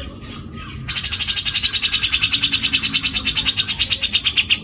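Grey-cheeked bulbul (cucak jenggot, Javan type) giving its harsh rattling 'besetan' call: a rapid, even rattle of about eleven pulses a second that starts abruptly about a second in.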